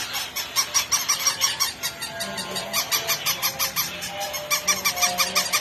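Several battery-operated toy puppies yapping at once through tiny electronic speakers, a busy chatter of quick repeated yelps. Under it is the rapid clicking of their walking mechanisms and the sounds of the other toys.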